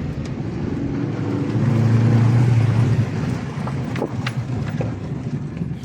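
Motor vehicle engine running with a low, steady hum that swells louder for about a second and a half around two seconds in, then settles; a few faint clicks near the end.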